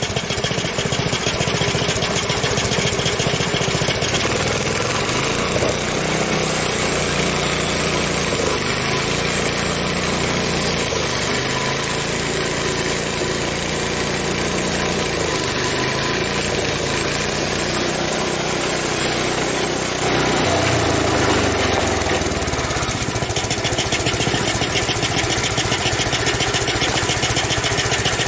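Frontier OS23 portable band sawmill running, its small gas engine driving the band blade through an ash log. The engine note rises and falls through the middle and gets a little louder about two-thirds of the way through.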